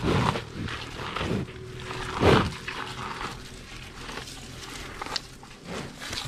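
Carabao (water buffalo) breathing and snuffling right at the microphone while it grazes: a few loud puffs of breath, the loudest a little over two seconds in.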